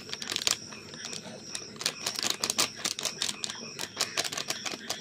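A spoon tapping and clinking on the rim of a stainless steel bowl while chili powder is shaken off it onto raw chicken: irregular sharp taps, some in quick runs.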